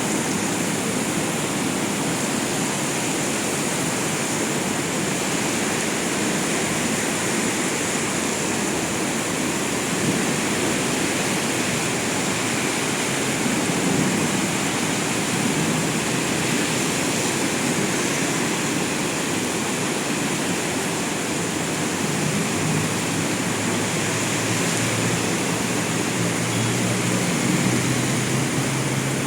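Heavy rain pouring down in a steady, unbroken hiss. A low engine drone from passing traffic joins about two-thirds of the way in.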